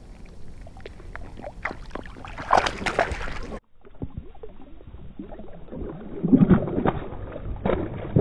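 Water splashing and sloshing as a bass is held in the water and released by hand, with knocks of handling. The louder splashes come about two and a half seconds in and again about six and a half seconds in.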